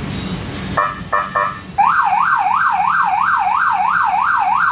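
Electronic police siren on a Polaris Sportsman 570 police ATV, worked from its handlebar controller: three short tone blips about a second in, then a fast yelp, the pitch sweeping up and down about three times a second.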